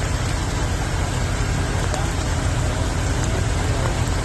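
Steady rain with a vehicle engine running, a constant low rumble under an even hiss.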